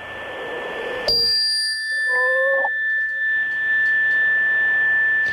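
Electronic interference on a phone call. Hissing static swells, then about a second in it switches abruptly to a loud, steady high-pitched whine layered with other thin tones, and a brief lower tone sounds just after two seconds.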